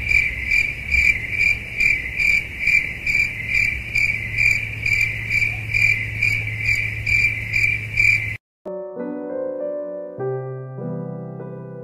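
An insect chirping in a steady run of high pulses, about two a second, over a low steady hum. It cuts off suddenly about eight seconds in, and soft piano music follows.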